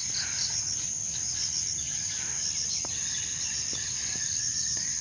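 Steady high-pitched chorus of insects, a continuous trill with a pulsing beat.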